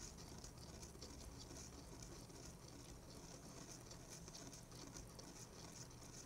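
Faint, rapid ticking and swishing of a wire whisk stirring milk in a bowl, dissolving the yeast and sugar.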